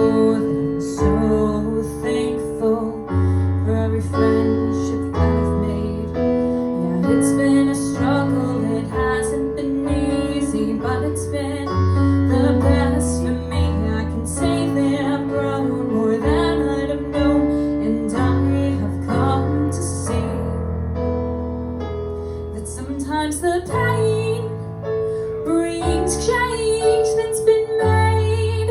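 A piano playing a slow song with sustained chords and bass notes, and singing over it at times.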